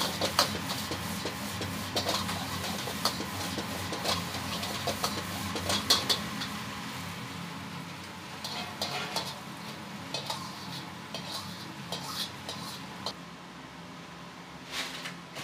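A metal ladle clanking and scraping against a carbon-steel wok while rice is stir-fried, with a frying sizzle. The clanks come thick and fast for the first six seconds or so, then grow sparser and softer. A steady low hum runs underneath.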